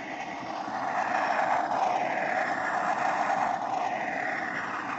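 Electronic Space Maxx 1 toy rocket's built-in speaker playing its rocket-engine noise effect after liftoff: a steady rushing noise that grows louder over the first second and then holds.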